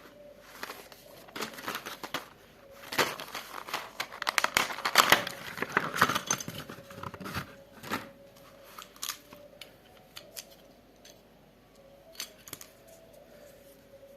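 Gift-set packaging being handled and unwrapped by hand: a run of rustling, tearing and clicking noises, busiest a few seconds in, then thinning to occasional taps in the second half.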